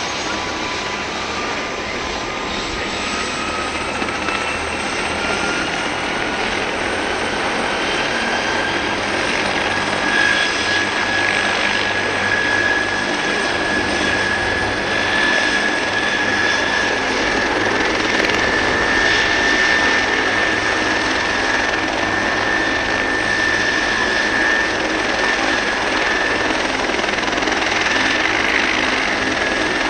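Helicopter turbine engines running on the ground ahead of takeoff, over a broad rushing noise. A whine rises in pitch over the first ten seconds or so, then holds steady while the sound grows slightly louder.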